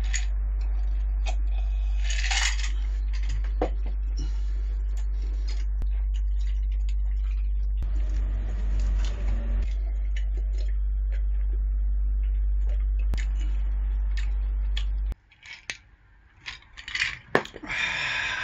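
Small clinks and taps of a glass and tableware over a steady low hum. The hum cuts off abruptly about fifteen seconds in, and clinks of metal tongs against plates follow near the end.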